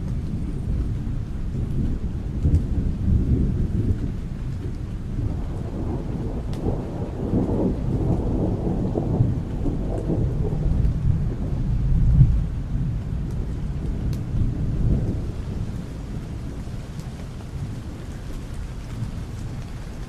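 Thunder rolling in heavy rain: a long low rumble that builds about five seconds in, is loudest about twelve seconds in, then dies away under the steady hiss of rain.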